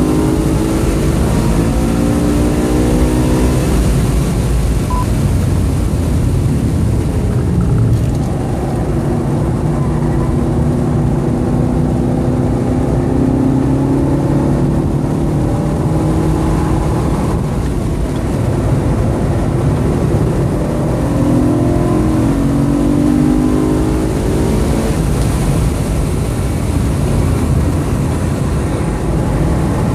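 2013 BMW M3's V8 engine heard from inside the cabin on track, its note climbing under acceleration and dropping as the car slows for corners, several times over. Steady road and wind noise runs underneath.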